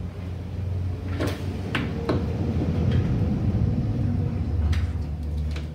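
A woodless colored-pencil stick scraping over drawing paper on a tabletop: a low, scratchy rumble that swells and fades, with a few light taps and knocks as the strokes start and stop.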